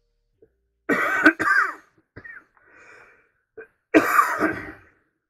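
A man coughing hard: two coughs close together about a second in, a few smaller catches of breath, then another loud cough about four seconds in.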